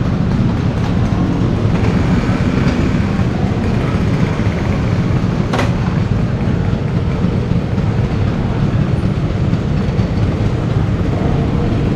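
Steady rumble of riding on an old Vespa scooter: engine and wind noise with no change in pace. A single sharp click comes about halfway through.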